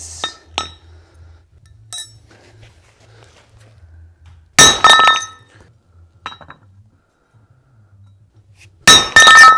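Sharp metallic clanks that ring at a few fixed pitches: one loud clank about halfway and a quick run of clanks near the end, with light clicks between. Metal parts are being handled while flattening a heated, warped cast-aluminium mast foot.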